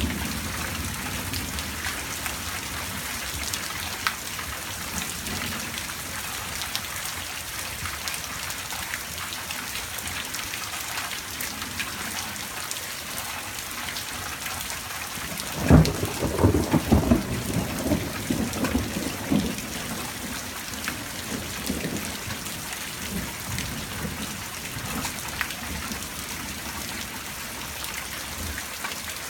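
Steady rain, with a sudden loud clap of thunder about halfway through that rumbles on for several seconds.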